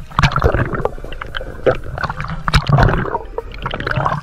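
Water churning and gurgling against an underwater camera, heard muffled through its housing, with irregular sharp knocks and clicks.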